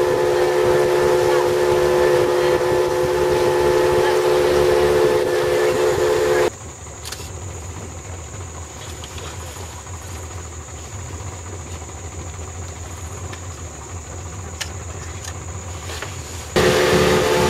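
River boat's outboard motor running with a steady drone, cutting off abruptly about six seconds in. It gives way to a much quieter background with a thin, steady high-pitched tone and a few faint clicks. The motor drone cuts back in abruptly near the end.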